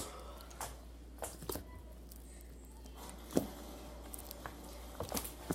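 Slime being squished and handled by hand, giving small scattered squelches and clicks, with one sharper click a little over three seconds in.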